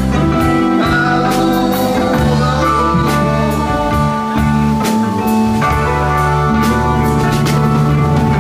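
Live band music played loud: an electric guitar with held tones over drums and cymbals.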